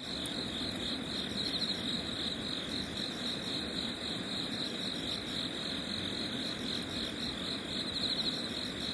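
Night insects chirping: a steady high-pitched trill that pulses in a regular rhythm, over a low background hiss.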